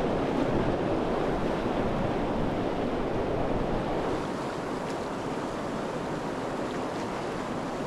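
Whitewater rushing over a river play wave: a steady, dense rush of water that drops slightly in level about four seconds in.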